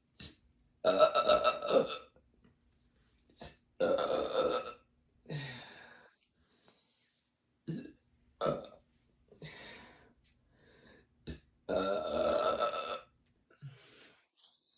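A woman burping after drinking a liter of fizzy sparkling water: three long burps of about a second each, shortly after the start, around four seconds in and near the end, with shorter, quieter sounds between them.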